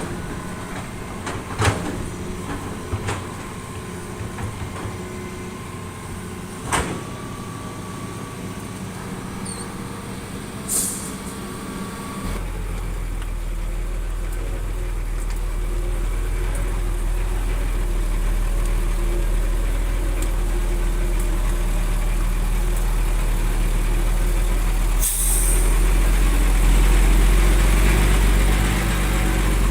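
Heavy diesel construction machinery running, with a few metallic clanks in the first seconds. About twelve seconds in, a deep engine rumble sets in and slowly grows louder, with short hisses near the middle and again near the end.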